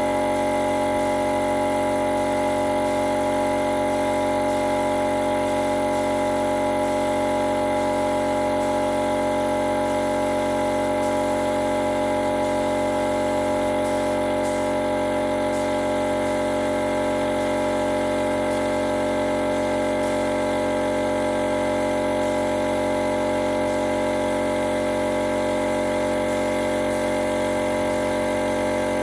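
A motor running steadily: a constant, even hum at several fixed pitches that does not change.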